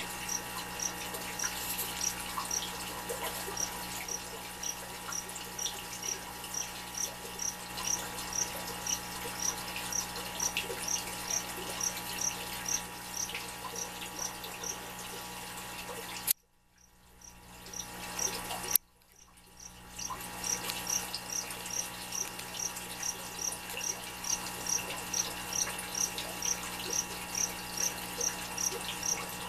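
Steady aquarium hum with running-water noise, and a short high chirp repeating about three times every two seconds. Twice in the middle, a click cuts the sound out, and it fades back in over a second or so.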